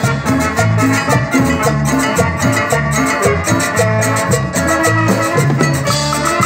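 Live instrumental Latin dance music from a band: a stepping melody over a bass line, with a steady percussion beat.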